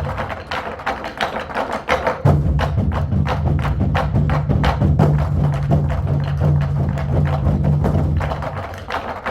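Ensemble of Korean barrel drums (buk) struck rapidly in a group drumming performance, the dense strikes mixed with sharper clicking hits. A sustained low tone under the drums comes in about two seconds in and drops out shortly before the end.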